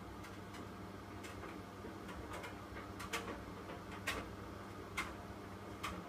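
Hoover WDYN 11746 PG8 washer-dryer tumble-drying shirts and sweaters on its low-temperature mixed-fabrics cycle. The machine gives a steady low hum, and in the second half there are light clicks about once a second as the clothes tumble in the drum.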